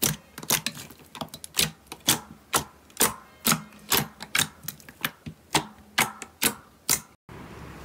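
Blue slime being pressed and squished by hand in a steel bowl, popping with sharp clicks about twice a second as air pockets burst under the fingers. The clicking stops near the end, giving way to a steady hiss.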